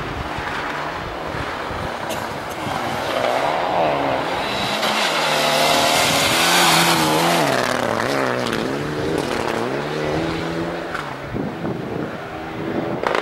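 Mitsubishi Lancer Evolution rally car's turbocharged four-cylinder engine revving hard as it approaches and passes through a snowy bend, the engine note rising and falling with throttle and gear changes. It is loudest about halfway through, with a hiss of tyres and thrown snow as it goes by closest.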